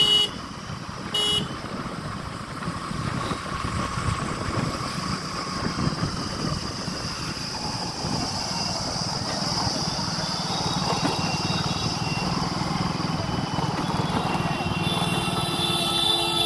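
Motorcycle riding at low speed with steady engine and wind noise in street traffic. Two short horn toots come right at the start and about a second in, and a longer horn sounds near the end.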